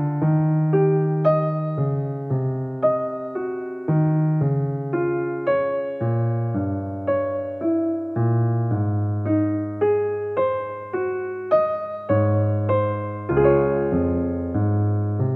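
Background piano music: a gentle melody of single struck notes, about two a second, each fading, over lower bass notes.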